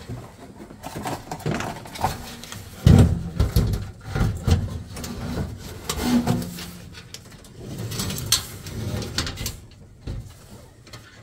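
Sheet-metal blower housing being slid and worked into a metal furnace cabinet: irregular scraping and knocking of metal on metal, with a heavy thump about three seconds in and more knocks after it.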